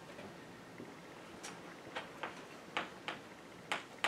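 Chalk tapping and scraping on a blackboard as a word is written: a string of short, sharp clicks, irregular and about a third to half a second apart, starting about a second and a half in.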